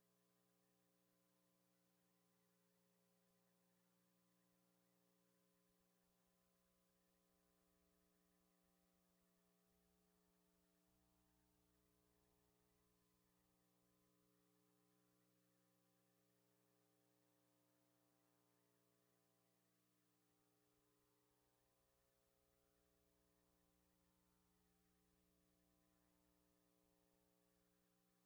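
Near silence, with only a faint steady electrical hum.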